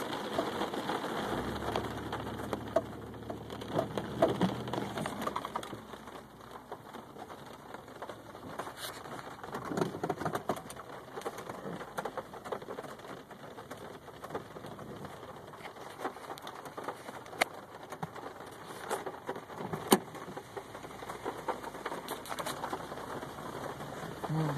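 Heavy rain on a car's roof and windshield, heard from inside the cabin: a steady hiss with many sharp individual drop hits.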